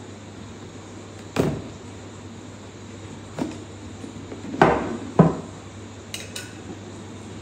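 A cardboard product box handled on a wooden tabletop: four separate knocks and thuds as it is shifted and set down, the loudest two close together about halfway through. Two faint light clicks follow near the end.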